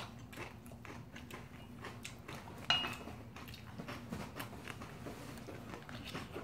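Eating sounds: close chewing of mouthfuls of bibimbap, with light clicks and scrapes of spoons against a stainless steel mixing bowl, one sharper click near the middle.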